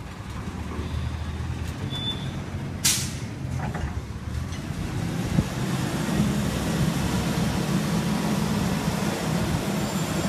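Diesel engine of a Curotto-Can automated garbage truck running as it moves along the street, growing louder after about six seconds. A short high squeal about two seconds in and a sharp, brief air hiss just before three seconds, typical of the truck's air brakes.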